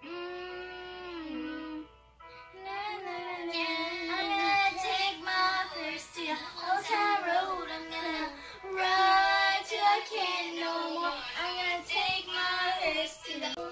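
A song with a high singing voice over music. It opens on one long held note of about two seconds, pauses briefly, then runs into a quick-moving sung melody.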